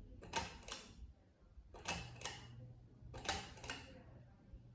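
Nicor Chateau ceiling fan running, with a rhythmic ticking: a pair of sharp clicks about every second and a half.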